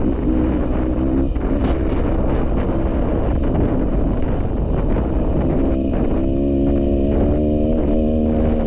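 Dirt bike engine running under throttle with heavy wind noise on the microphone. The engine note rises about six seconds in and then holds steady.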